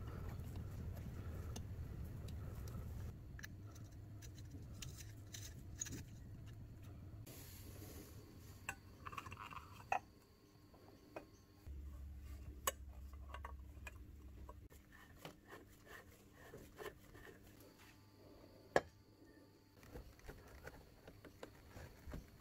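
Parts of a vintage Eveready torch lantern being fitted together by hand: faint, scattered clicks, taps and light scrapes of metal and glass, with a few sharper clicks.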